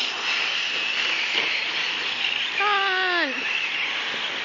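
Radio-controlled short course trucks racing on a dirt track: a steady high whir of motors and tyres. About three seconds in, a brief pitched sound slides downward.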